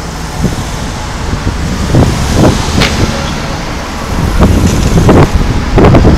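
Fireworks going off: a series of dull booms, one to two seconds apart, over a steady low rumble.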